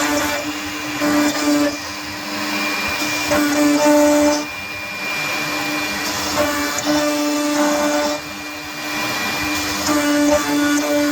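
CNC router carving an MDF sheet: a steady motor whine and cutting noise whose tone strengthens and eases every second or two as the machine moves through the design.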